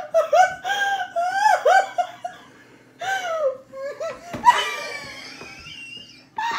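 Women laughing hard at a table in high-pitched bursts of shrieking laughter, with a brief lull about two seconds in and a longer, falling squeal of laughter later on.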